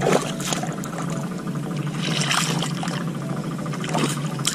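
Hands digging into the wet mud and water of a flooded rice paddy, squelching and splashing while reaching into a deep mud crab burrow, with a louder slosh about two seconds in.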